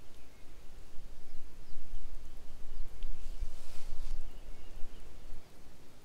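Wind buffeting the microphone in uneven low gusts. About three and a half seconds in comes a short rustle of a plastic bag wrapped around a plastic food container being handled.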